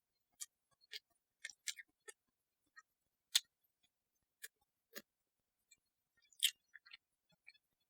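Close-miked eating sounds: scattered short clicks and smacks of chewing, irregular, with a louder click about three seconds in and a slightly longer one about six and a half seconds in.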